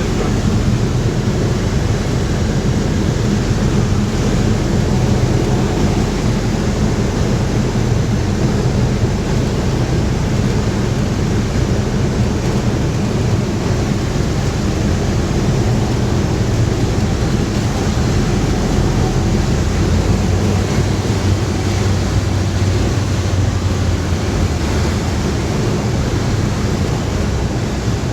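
The Rotax engine of a Sling 2 light aircraft running steadily at a low drone, with rushing wind noise from the airflow over the airframe.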